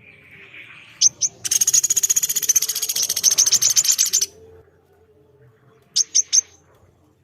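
Bird calls: two sharp, high notes, then a rapid, high trill lasting about three seconds, then three more sharp notes near the end.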